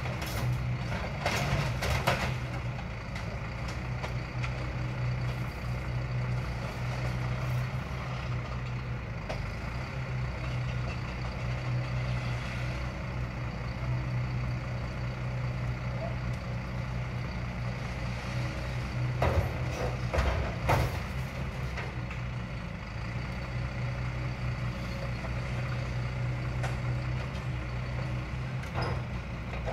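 Scrap lorry's engine running steadily to work its hydraulic loader crane, with scrap metal clanking and banging now and then: a couple of seconds in, a few times about two-thirds of the way through, and once near the end.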